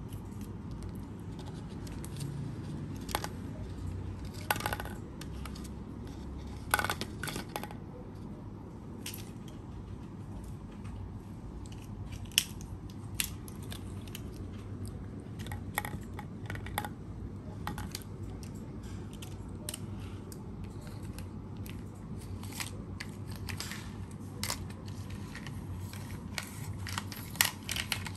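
Small plastic toy cars clicking and clacking as they are handled and knocked on a tiled floor, in scattered irregular taps with a few louder clacks, over a low steady hum.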